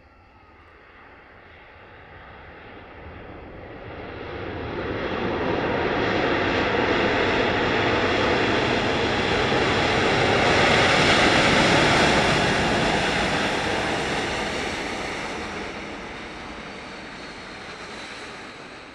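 Airliner flying low overhead. Its engine noise builds for about ten seconds, is loudest a little past the middle, then fades, with a whine that drops in pitch as it moves away.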